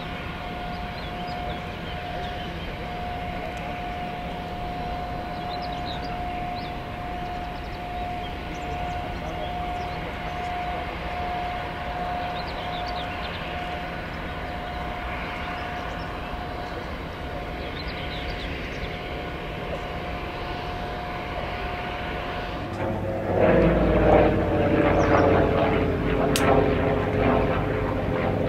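A distant propeller aircraft droning steadily over the airfield, with a faint steady tone above it. About 23 seconds in the sound changes abruptly to a Messerschmitt Bf 109 fighter's piston engine passing close overhead, much louder.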